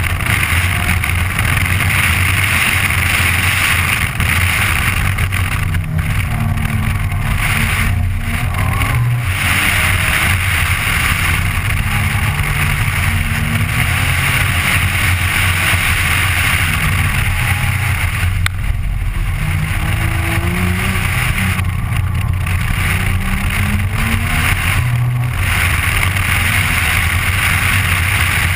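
Nissan GT-R's twin-turbo V6 driven hard on a track lap, heard from inside the cabin over heavy wind and tyre noise. The engine note climbs and falls repeatedly as the car accelerates out of corners and brakes into them, with several brief drops in between.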